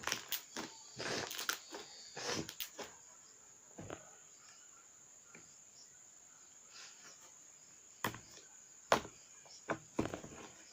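Slime being pressed and folded by hand to make bubble pops: a quick flurry of crackling clicks and pops for the first few seconds, then a few single sharp pops near the end.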